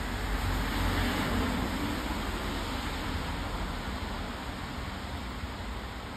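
Street traffic noise: a vehicle passing, loudest about a second in, then fading back into a steady traffic hiss.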